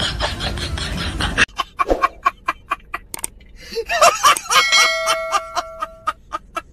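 After a second and a half of loud, noisy commotion, a man laughs hard in quick bursts, then breaks into a long, high, honking cackle near the end.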